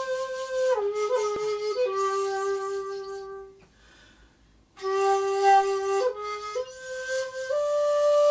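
Background music: a solo flute playing slow, long held notes that step from pitch to pitch. It breaks off for about a second near the middle and then resumes.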